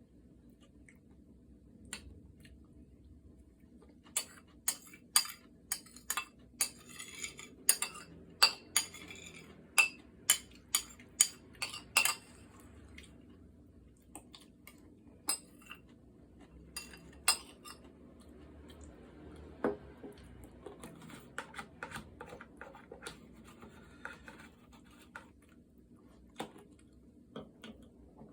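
Cutlery clinking against dishes while eating: a string of sharp clicks and taps, thick and fast through the first half, then sparser.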